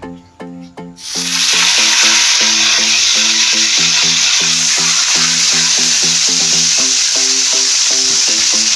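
Marinated chicken going into hot cooking oil in a wok: a loud sizzle starts about a second in and holds steady. Light background music with short plucked notes plays underneath.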